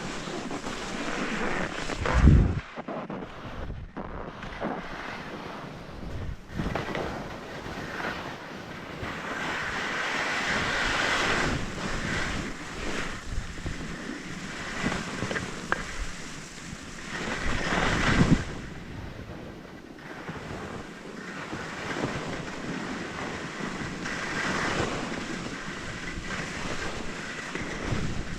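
Skis scraping and hissing over snow in surging turns, with wind rushing over the microphone. A loud low thump about two seconds in.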